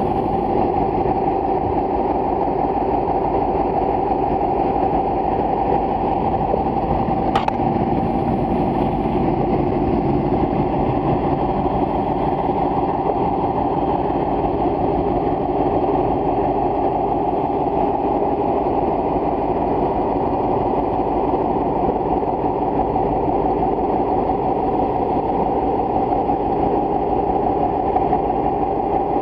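A motor running with a steady, unbroken hum, heard through the water, with one short click about seven seconds in.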